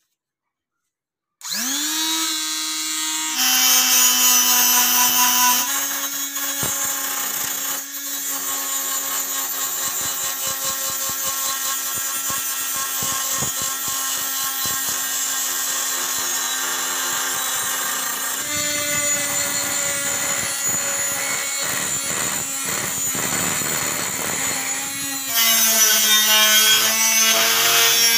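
Electric die grinder with a wire wheel, switched on about a second and a half in and spinning up with a rising whine. It then runs steadily while the wire brush scrubs rust off a steel cleaver blade, with a hiss of brushing over the motor whine, louder for a couple of seconds early on and again near the end.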